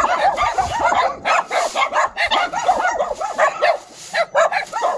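Many dogs barking and yipping at once, a dense chorus of short, overlapping calls with no break.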